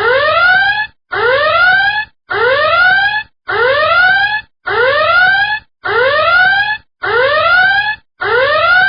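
Electronic warning alarm sounding a rising whoop again and again, about eight times, each sweep a little under a second long with a short gap between.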